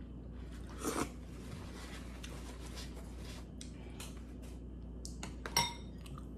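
Close-up eating sounds: chewing and slurping of chicken noodle soup, with a brief louder mouthful about a second in and small clicks through the middle. Near the end comes one short, ringing metallic clink.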